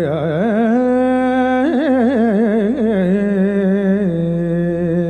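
Male singer's wordless opening vocal phrase into a microphone, in a Carnatic-style alaap: held notes broken by quick ornamented wavers and slides, over a low steady drone.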